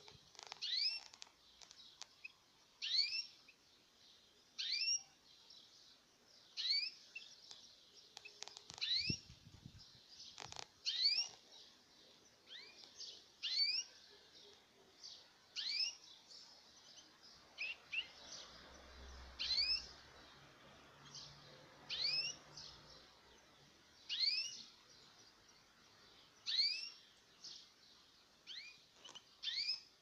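Caged canaries giving short rising chirp calls, many with a lower second note, repeated about every two seconds. A couple of soft knocks come about nine and eleven seconds in.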